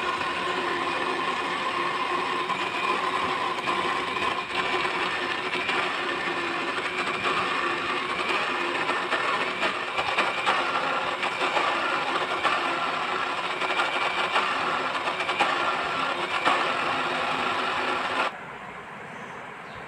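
Electric blender motor running steadily with a whirring hum while it beats thick cake batter, then switching off shortly before the end.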